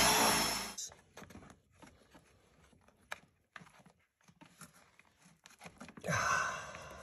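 Power drill boring through a wooden floor at the base of a door frame, running with a whine and then stopping about a second in. Faint scrapes and clicks of hands working at the drilled hole follow, with a short burst of noise near the end.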